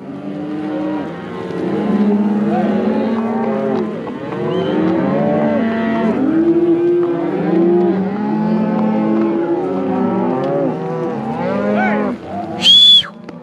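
A herd of cattle mooing and bawling, many calls overlapping one another. A short, loud, high-pitched call cuts through near the end.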